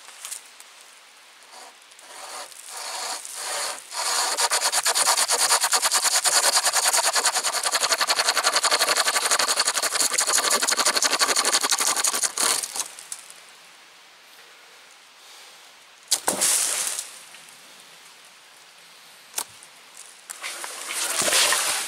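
Hand chain saw pulled back and forth through a young beech log: a few slow strokes, then about eight seconds of fast, steady sawing that stops once the cut is through. A thump with rustling of leaves follows a few seconds later, and more rustling near the end.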